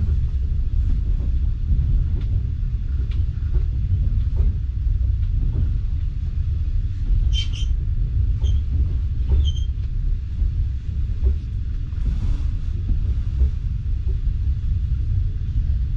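Passenger train carriage running on the track, heard from inside: a steady low rumble of the wheels with scattered clicks as they pass over rail joints and points. A few short high-pitched metallic squeals come between about seven and ten seconds in.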